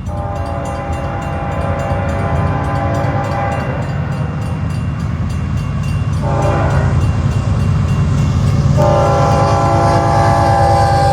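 Union Pacific diesel locomotive horn sounding for a grade crossing: a long blast, a short one a few seconds later, then another long blast held, over the low rumble of several diesel locomotives drawing closer and growing louder.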